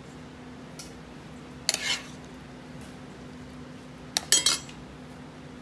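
Metal kitchen tongs scraping and clinking against the pan as ground-beef filling is scooped out, in two short bursts: one about two seconds in and a second, with several clinks, just past four seconds.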